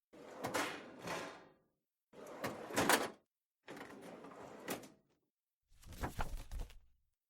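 Four separate short mechanical handling sounds, each about a second long: a scraping noise with sharp clicks, cut apart by complete silence.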